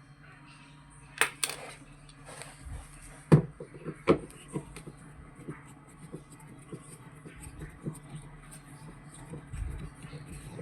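Scattered knocks and clicks of hard objects being handled, loudest about a second in and again around three and four seconds in, over a steady low hum.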